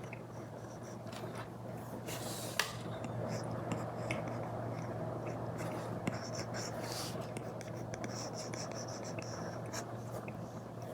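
Apple Pencil tip drawing on an iPad with a paper-textured screen protector: continuous scratchy strokes with a few sharp taps of the tip on the glass.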